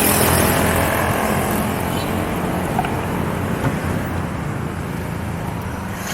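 Road traffic noise on a highway: a vehicle's engine hum dies away in the first second, leaving a steady rush of tyres and passing traffic that slowly grows quieter.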